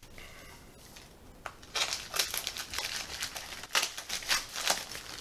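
Packaging crinkling and crackling as it is handled and unwrapped, the crackling starting about two seconds in and going on in quick irregular bursts.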